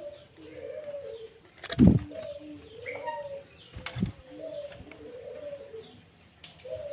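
Pigeons cooing, low phrases repeated about once a second, with a few faint higher chirps. Two loud knocks break in, about two seconds in and again about four seconds in.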